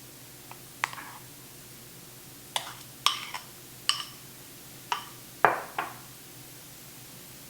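A metal utensil clinking and tapping against a dish about nine times, in short, sharp, ringing clicks spaced unevenly, while a cake is being frosted. The loudest clink comes about two-thirds of the way through.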